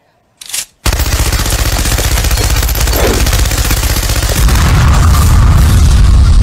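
Machine gun firing in one long, unbroken stream of very rapid shots, starting about a second in. A deep rumble grows under the fire in the second half.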